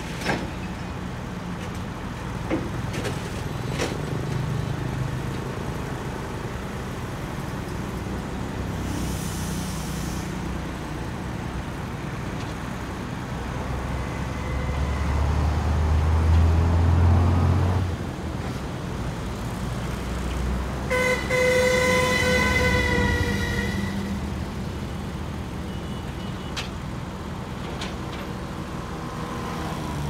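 Crawler bulldozer's diesel engine running, working harder and louder for a few seconds around the middle as it climbs the ramps onto the truck's flatbed. About 21 seconds in, a vehicle horn sounds once for about two and a half seconds.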